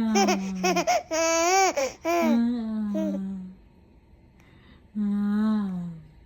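A voice babbling and laughing in short bursts that swoop up and down in pitch, with a pause of about a second and a half after the middle.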